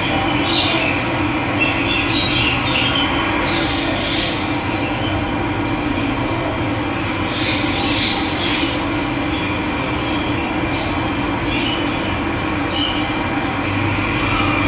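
Steady rush of running water, with birds chirping now and then above it.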